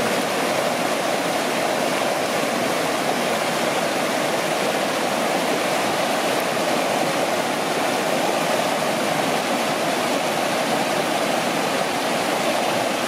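A rocky creek rushing and splashing over boulders in a small whitewater cascade, a steady, unbroken rush of water.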